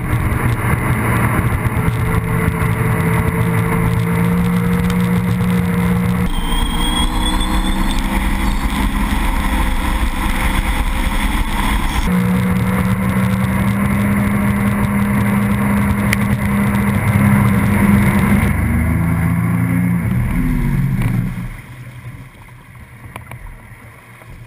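Sea-Doo GTR 230 personal watercraft's supercharged Rotax engine running at speed, with water rushing past and a rising whine around seven seconds in. Near the end the engine drops to a much quieter low-speed run as the craft slows in shallow water.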